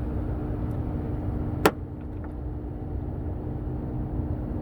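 A single sharp click about one and a half seconds in, over a steady low hum.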